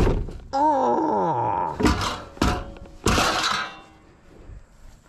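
Heavy thunks and knocks from work on a pop-up camper's frame: a sharp knock, a man's long falling groan of 'oh', two more knocks, then a longer rough scraping noise about three seconds in.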